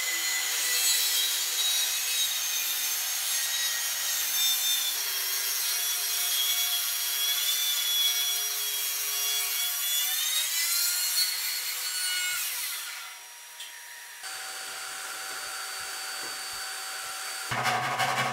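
Handheld circular saw with a dust extractor hose attached, cutting a heavy bevel along the end grain of a solid oak tabletop; the motor's whine falls in pitch as it winds down about ten to thirteen seconds in. A steadier, quieter machine whine follows, and near the end a different, fast pulsing sound starts.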